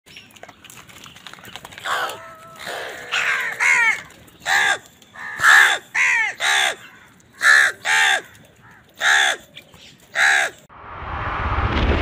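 House crows cawing: about a dozen harsh caws, singly and in quick pairs. Near the end a rising whoosh of noise swells up and takes over.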